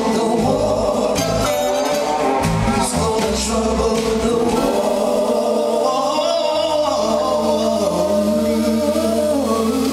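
Live band with singers, drums and a horn section of saxophone, trumpet and trombone playing a gospel-style soul number. About four and a half seconds in, the driving beat stops and the voices and horns hold a long sustained chord over a steady low note.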